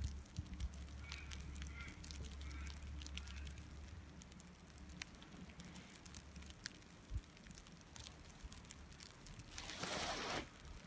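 Quiet open-air ride on a ski chairlift: a low rumble of wind on the phone's microphone that fades out about two-thirds of the way through, scattered light clicks and rustles, and a brief rush of noise near the end.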